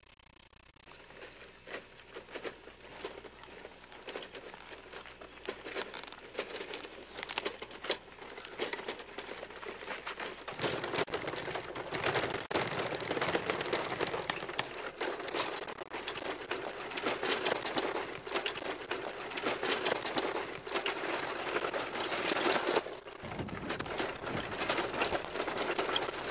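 Dense, continuous crackling noise, growing louder through the first half and staying loud.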